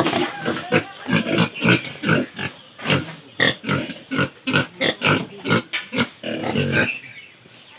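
Pigs grunting in quick, short, repeated grunts that die down near the end.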